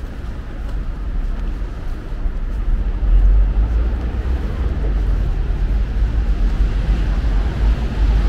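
City street ambience with a low rumble of passing road traffic, growing louder about three seconds in.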